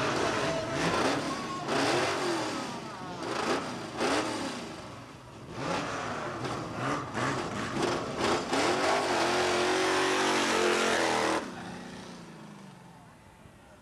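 Drag-racing car engines at the start line, a Ford Maverick among them, blipped again and again, each rev rising and falling. They are then held high and climbing through the launch. The engine sound drops away sharply about eleven seconds in and fades.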